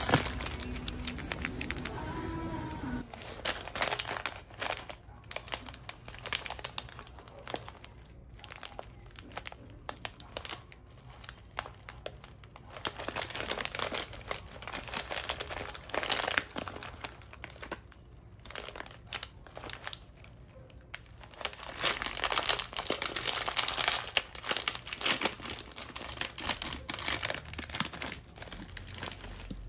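Metallised foil snack bag crinkling as it is handled, with a louder stretch of crinkling and tearing about three-quarters of the way through as the bag is pulled open.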